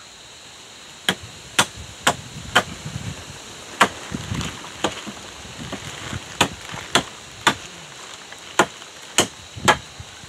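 About a dozen sharp strikes of a swung hand tool into birch logs, roughly two a second in short runs of two or three with brief pauses between.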